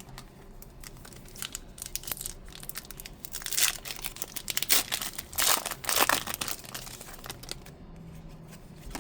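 Foil trading-card booster pack being crinkled and torn open by hand: a run of scratchy rustles and rips, loudest in the middle.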